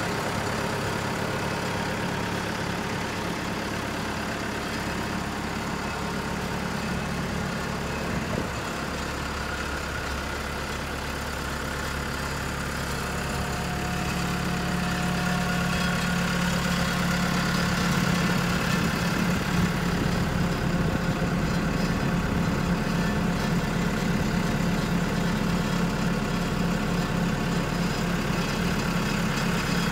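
Caterpillar TL943 telehandler's diesel engine idling steadily, growing a little louder from about halfway through.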